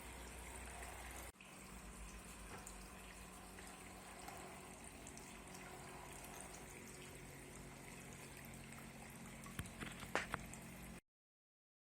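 Faint, steady trickle of water running over a homemade sea-coral waterfall fountain, with a few brief splashes near the end before the sound cuts off.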